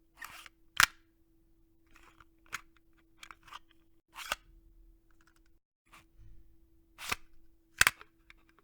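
Cassette machine clicking as it is handled: about five sharp clicks with smaller clicks and rattles between, over a faint steady hum that drops out briefly just before the middle.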